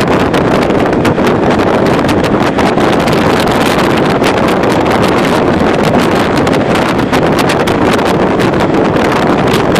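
Steady, loud wind rushing over the microphone, mixed with the running noise of the moving vehicle it is filmed from.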